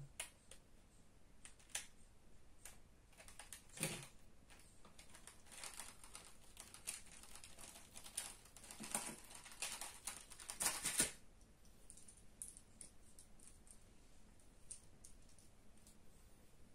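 Small irregular clicks, taps and scrapes of hand tools and parts being handled while taking apart an iPod, with a denser run of scraping from about nine to eleven seconds in.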